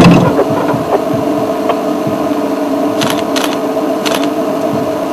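A steady mechanical hum with three short sharp clicks, about three, three and a half and four seconds in.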